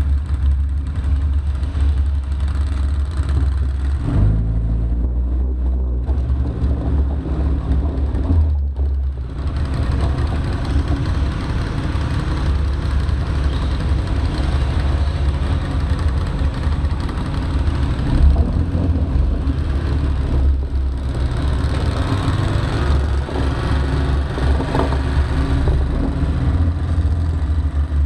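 Arctic Cat Wildcat side-by-side engine running with a steady low rumble, its pitch shifting a few times as the throttle changes.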